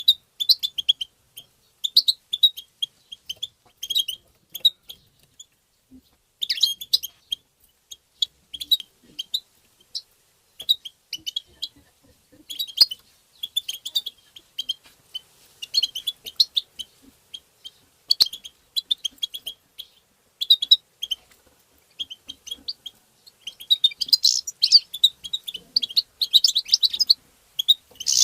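European goldfinch twittering: quick runs of high, liquid chirps in short clusters with brief pauses between them, busiest and loudest near the end.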